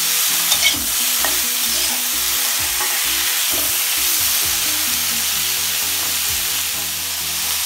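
Potato strips sizzling in hot oil in a metal kadhai while a flat metal spatula stirs and scrapes them, with a few sharp clinks of the spatula against the pan.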